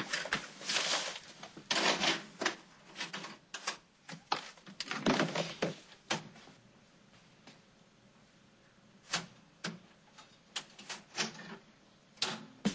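A run of sharp, irregular clicks and taps, dense for the first few seconds, then sparse single clicks.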